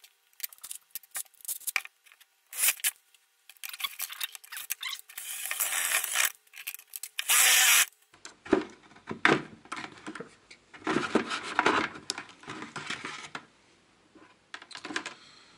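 Power drill boring a hole through the wall of a plastic bucket: a rising noisy cutting sound that peaks loudest about seven seconds in as the bit goes through. This is followed by knocking and scraping as the bucket is handled.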